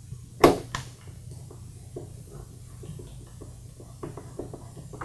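Phillips screwdriver turning a screw out of a plastic Power Wheels engine cover: a sharp click about half a second in, then a run of faint, evenly spaced clicks, about three a second, as the screw turns.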